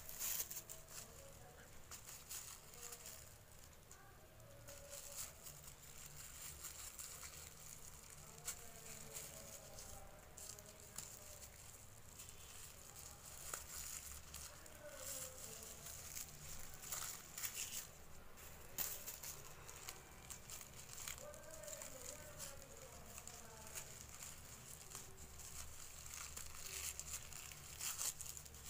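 Thin plastic carrier-bag strips faintly and irregularly crinkling and rustling in the hands as they are knotted into a fringe.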